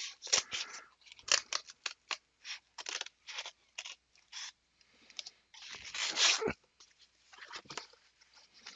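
A shipping package being cut and torn open: a quick run of short scratchy cuts, then a longer tearing rip about six seconds in, and a few more scrapes near the end.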